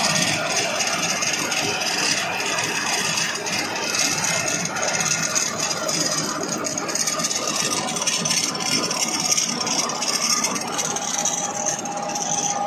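PVC wire extrusion line running, with a steady mechanical rattle and scraping from the machinery as the copper strands feed into the extruder head.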